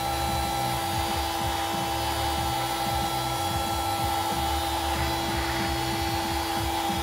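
Handheld electric heat gun running steadily, its fan motor giving a constant whine over the rush of hot air, used to soften epoxy glue.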